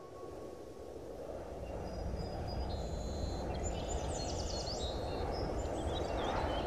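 Outdoor ambience: a steady low rush of background noise with several small birds chirping, the high, short calls starting about two seconds in.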